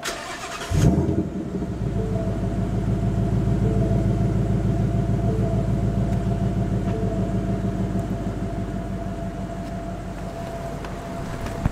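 Ford Mustang GT's 5.0 Coyote V8, heard from inside the cabin, cranks briefly and catches about a second in with a flare of revs, then settles into a steady idle that eases slightly. It is the first start after a Ceratec ceramic additive has been poured into the oil to treat the engine's tick.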